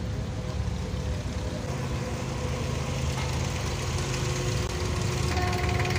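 Abra water taxi's diesel engine idling with a steady low rumble.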